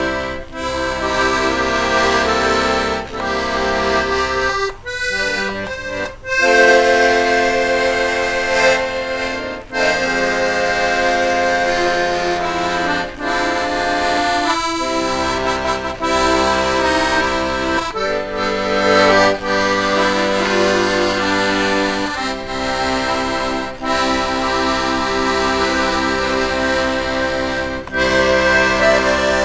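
Accordion music playing, with held chords that change every second or two and brief pauses between phrases.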